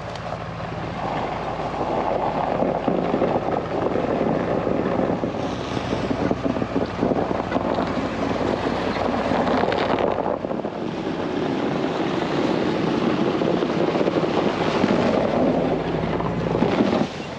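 Chevrolet Silverado pickup with a slide-in camper driving slowly over packed snow: tyres rolling and crunching through the snow with the engine running low under it, and wind buffeting the microphone.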